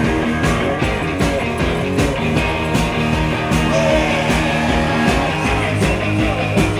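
Live rock and roll band playing: strummed electric guitar over a steady beat.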